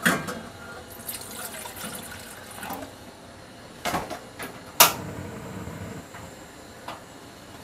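Stainless-steel saucepan set down on a gas hob with a clank. About four seconds in, the hob's igniter clicks a few times and the burner lights with a sharp click, leaving the steady hiss of the gas flame.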